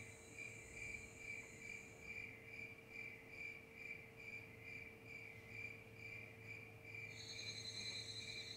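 Faint cricket-like insect chirring, a high trill pulsing about two to three times a second over a low steady hum, joined by a steadier, higher trill near the end.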